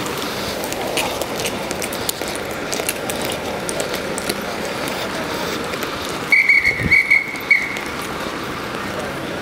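A traffic police officer's whistle blown in four short blasts in quick succession about six seconds in, over steady street noise.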